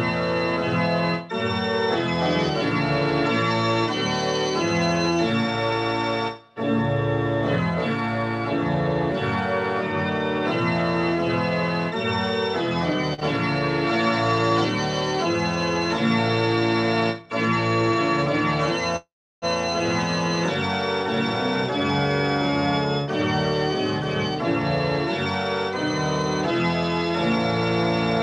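Organ music played on a digital keyboard: slow, sustained chords, broken by a few brief gaps, the longest about two-thirds of the way through.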